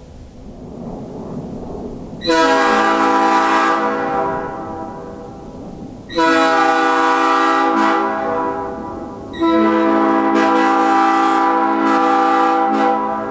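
Nathan P5 five-chime air horn sounding three long blasts of its chord. The blasts come about 2, 6 and 9.5 seconds in, each lasting three to four seconds, and the last two almost run together.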